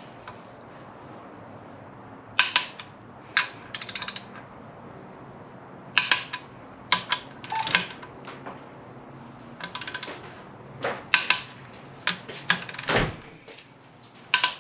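Hand tools and steel bolts clinking as they are handled and set against an engine block, about a dozen scattered sharp metallic clinks over a faint steady hum.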